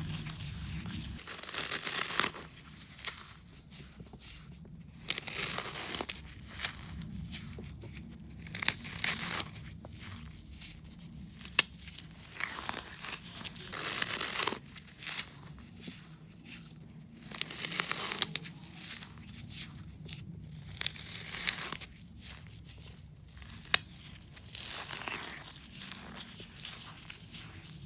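Soaked floral foam being crushed, crunching and crumbling in repeated bursts of a second or two, with a couple of sharp snaps.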